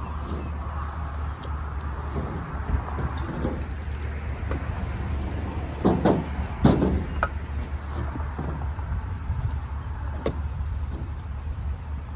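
Steady low vehicle engine hum, with scattered knocks and a couple of heavier thuds about six to seven seconds in from firewood bundles being handled and set into the rack.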